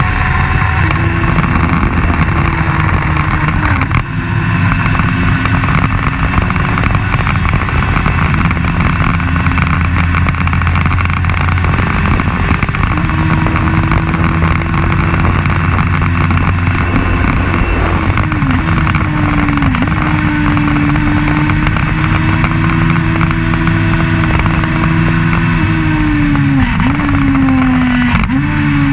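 Open-wheel race car's engine running hard at high revs, heard onboard, its pitch dipping sharply a few times and climbing back as the driver changes gear.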